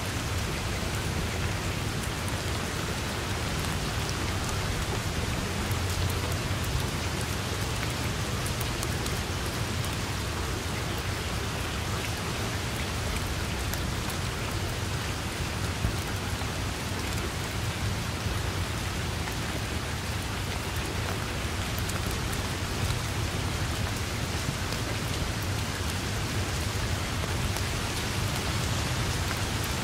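Steady rain falling on tall grass and a leafy tree, a constant even hiss with a low rumble underneath.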